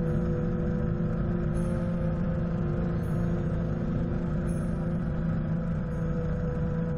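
Helicopter in level cruise flight, heard from a camera mounted on its nose: a steady drone of engine and rotor with a few constant hums over it, played back at double speed.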